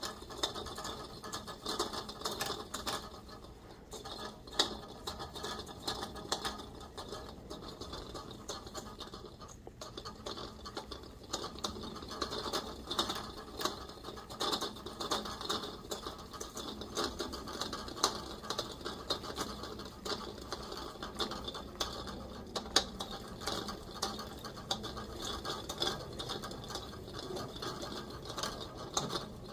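Okuma Avenger AV-2500 spinning reel being cranked steadily, its gears and rotor turning with a steady whir full of small ticks as braided line winds onto the spool under finger tension.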